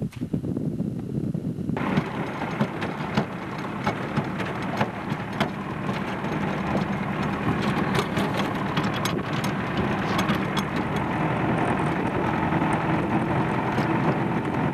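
Vehicle driving on a rough dirt track: steady engine and road noise with many small clicks and rattles. It starts abruptly about two seconds in.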